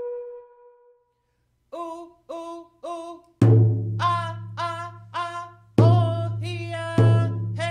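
A held tone fades out, and after a short pause a woman's voice chants three short calls. A deep drum then comes in with slow, single strokes under her continuing song: a traditional Gitxsan song with drum.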